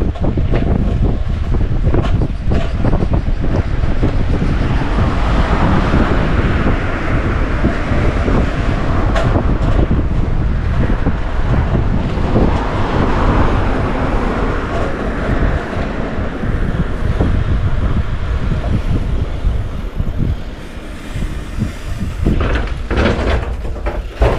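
Loud, steady rumble and road noise of a moving vehicle.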